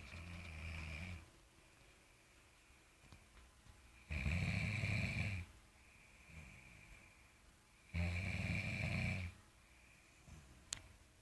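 Snoring: three loud, deep snores about four seconds apart, each lasting a little over a second, with quieter breaths between them. A short sharp click sounds near the end.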